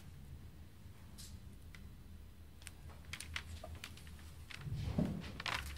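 Quiet room tone with a faint steady low hum, a few faint short clicks and rustles, and a soft breath-like sound about five seconds in.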